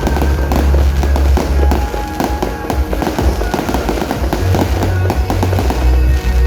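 Fireworks crackling and popping in rapid succession, over music with a heavy bass.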